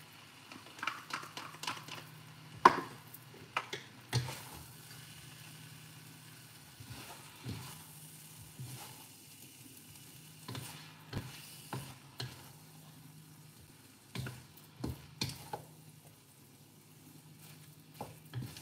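Wooden spoon and spatula stirring and tossing sauced noodles in a hot wok. Irregular knocks and scrapes against the pan sound over a sizzle, with one sharp knock about three seconds in and a steady low hum underneath.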